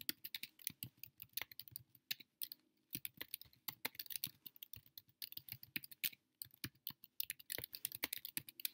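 Typing on a computer keyboard: quick, irregular runs of key clicks with a couple of short breaks.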